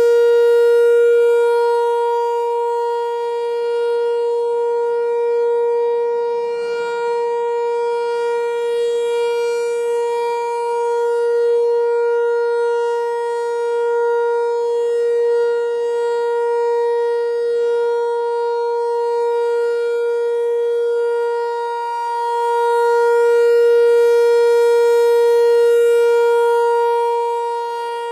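ASC T-128 rotating tornado siren sounding a steady single-tone alert. The tone is held at one pitch while its loudness slowly swells and fades as the siren head rotates.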